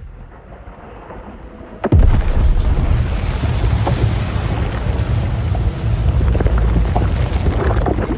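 Designed monster sound effect for the film's giant apes: a low rumble, then about two seconds in a sudden heavy blast that carries on as a loud, rough, sustained rumbling din, with scattered cracks near the end.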